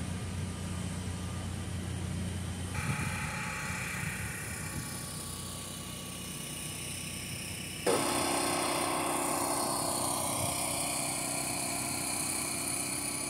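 Steady engine hum under outdoor ambience, changing abruptly twice, about three seconds in and about eight seconds in, and louder after the second change.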